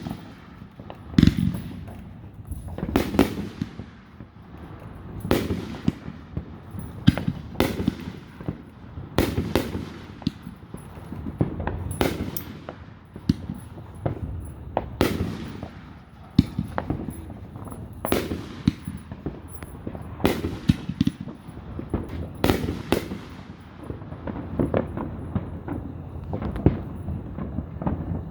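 Fireworks display: aerial shells bursting in a steady barrage, a bang every second or two, each followed by a rolling echo.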